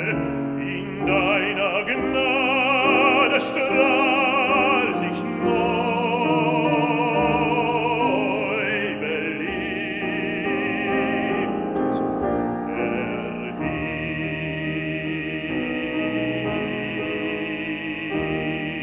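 A baritone singing a German art song with piano accompaniment, his voice in a wide vibrato. He holds one long final note through the last few seconds.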